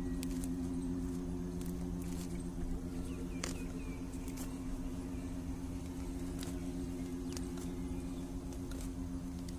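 Steady low motor hum, with scattered faint clicks over it; the strongest click comes about three and a half seconds in.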